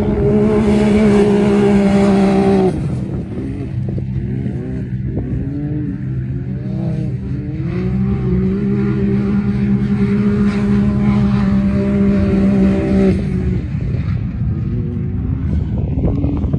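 Side-by-side UTV engines running hard on a dirt race course, loud throughout. A few seconds in, the pitch sweeps up several times in quick succession as the throttle is worked, then holds high and steady before dropping near the end.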